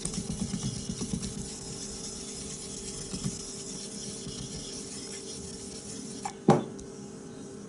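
Soft Tenjo nagura stone scrubbed back and forth over a wet Chosera 3000 waterstone, raising slurry: quick gritty rubbing strokes, about five a second at first, then an even scraping. One sharp knock about six and a half seconds in.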